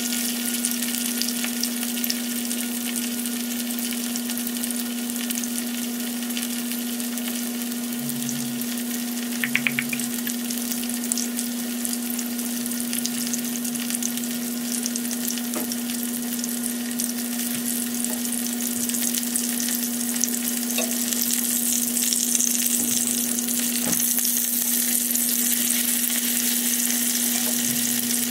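Skinless longganisa sausages sizzling steadily as they fry in oil in a nonstick pan, with a steady low hum underneath. The sizzle grows stronger over the last several seconds.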